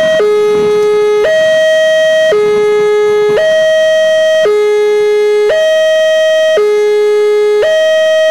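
Railway level-crossing warning alarm: an electronic tone alternating steadily between a low and a higher pitch, switching about once a second. It signals an approaching train while the crossing barrier is down.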